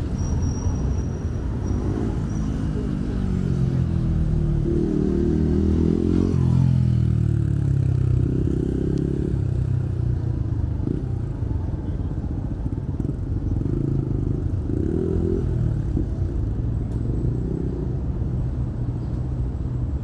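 A motor vehicle's engine running past over a steady street rumble, its pitch falling between about four and eight seconds in.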